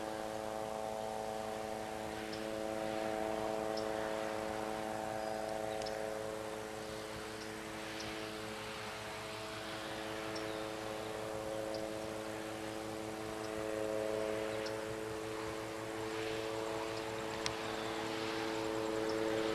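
Distant helicopter in flight: a steady humming drone that weakens a little midway and swells again toward the end, with faint short high chirps over it.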